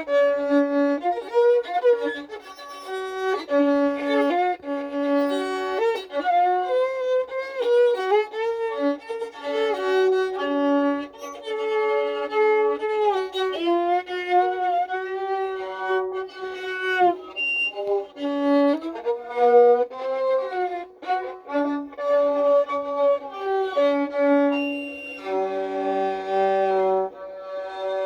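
A violin playing a melody, sliding up and down between notes.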